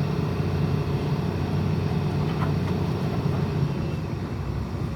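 Heavy diesel engine running at a steady speed, a constant low drone with no change in pitch.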